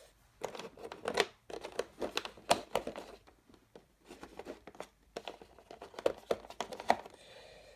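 Plastic board-game miniatures being fingered and pried out of their slots in a black insert tray: an irregular run of small clicks, scrapes and rustles.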